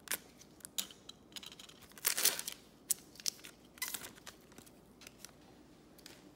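Foil wrapper of a trading-card pack being cut open and crinkled, with a louder tearing rustle about two seconds in and scattered sharp crackles, then cards sliding out of the wrapper and being handled.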